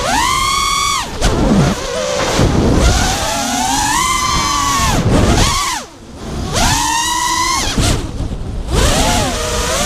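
Brushless motors and tri-blade props of a 5-inch FPV quadcopter (Lumenier RX2206 2350Kv motors) whining, heard from the GoPro on the quad; the pitch keeps sweeping up and down with the throttle. The whine drops sharply for a moment about six seconds in, then climbs back.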